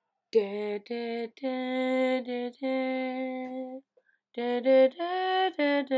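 A woman's voice singing unaccompanied, in short phrases of long held notes, with a brief pause about four seconds in.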